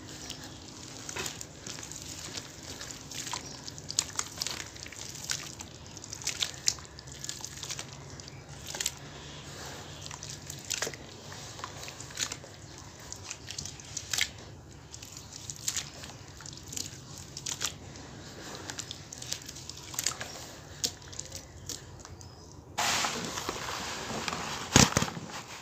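Hands squeezing and squishing wet cement paste in a basin of water, with many short wet splats and drips. Near the end, dry cement powder pouring into the water gives a sudden, louder, steady hiss.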